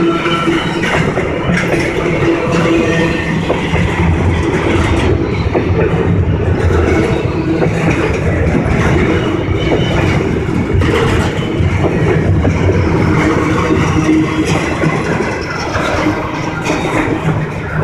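Double-stack container train cars rolling past, a loud steady rumble of steel wheels on rail with clicks as the wheels cross rail joints.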